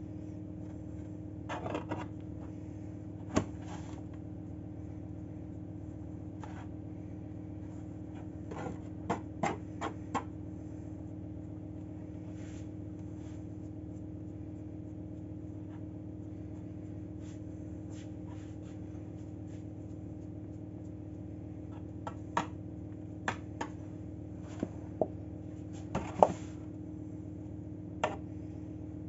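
Scattered light clicks and knocks of metal bread tins and a small knife as risen loaves are scored and a tin is shifted, a few sharper knocks coming in a cluster near the end, over a steady low hum.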